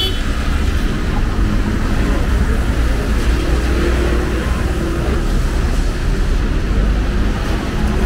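Steady rumble of city street traffic, with a faint hiss of rain over it.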